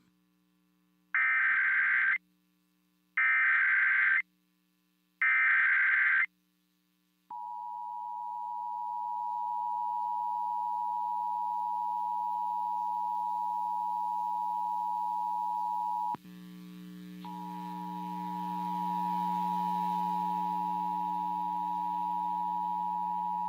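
Emergency Alert System test tones: three short bursts of SAME header data, each about a second long, then the steady two-tone EAS attention signal (853 and 960 Hz). The attention signal briefly drops out about two-thirds of the way through and comes back over a low hum.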